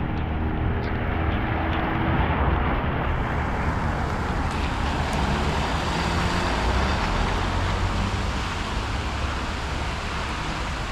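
Street traffic in a heavy rain storm: a vehicle's engine hum that fades out about three seconds in, under a steady hiss of rain and tyres on the wet road.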